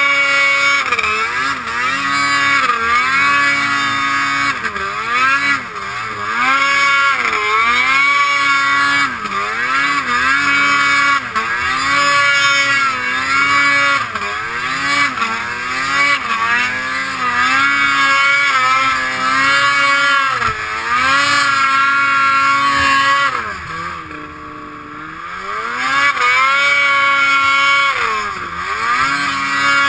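Snowmobile engine revving up and down over and over while riding through deep powder, its pitch rising and falling every second or two. About three-quarters of the way through it eases off briefly, then climbs again.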